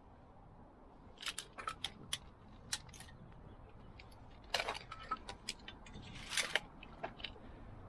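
Retractable steel tape measure being handled: a scatter of sharp clicks and rattles from the blade and case, with two longer rattling bursts about four and a half and six seconds in.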